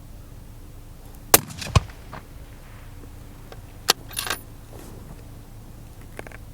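Sharp metallic clacks of a Palma target rifle's bolt being worked: two loud clacks about a second in, a third near four seconds, then a brief metallic jingle.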